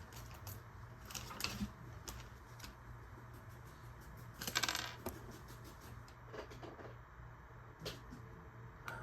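Lego bricks being handled, with small hard plastic pieces clicking and knocking against each other. A quick rattling run of clicks comes about halfway through.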